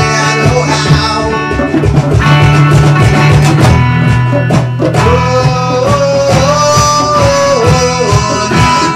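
Acoustic guitar and djembe playing an instrumental passage live, the guitar strumming chords while the hand drum keeps a steady beat. About halfway through, a long held melody note comes in, bending slightly, before dropping away near the end.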